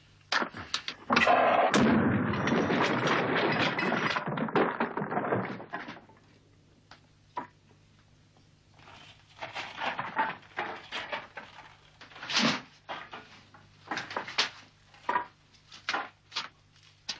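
Objects clattering and rattling for several seconds as they are rummaged through and moved about on a workbench. Then comes a string of separate knocks and clicks from handling tools and parts.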